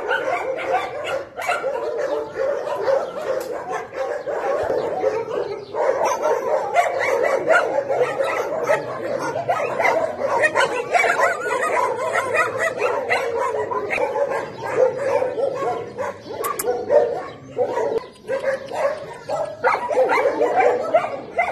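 Many dogs barking and yipping at once in a continuous, overlapping din, with a few whimpers among them.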